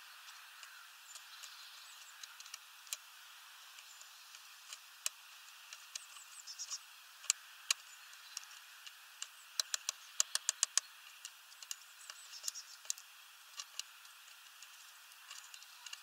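Great tit pecking and hammering at sunflower seeds on a wooden feeder: scattered sharp taps, with a quick run of about ten blows around ten seconds in.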